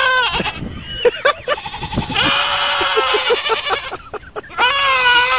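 An animal calling in a series of long, wavering calls; the longest lasts nearly two seconds.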